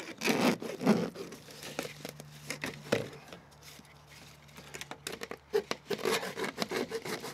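Hacksaw cutting through black corrugated plastic drainage pipe: a run of quick rasping strokes, thinning out for a couple of seconds in the middle, then picking up again.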